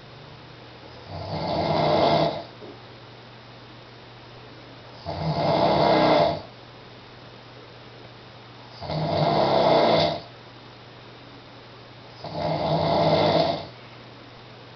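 A sleeping man snoring in a regular rhythm: four snores, each about a second and a half long, one every three and a half to four seconds. A steady low hum fills the gaps between them.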